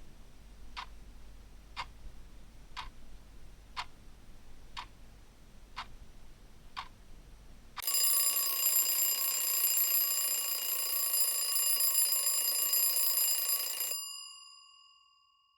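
Clock ticking about once a second, then about eight seconds in a loud alarm-clock bell rings steadily for about six seconds, signalling the end of the countdown, and fades away.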